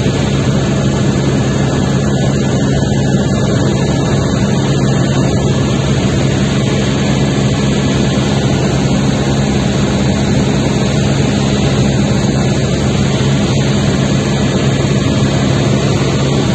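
Helicopter in flight: a loud, steady drone of rotor and turbine with a constant low hum, unchanging throughout.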